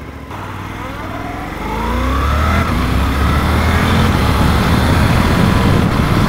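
Suzuki V-Strom 800DE's 776 cc parallel-twin engine accelerating hard, the revs climbing with a gear change about two and a half seconds in. A rush of wind noise builds as the speed rises.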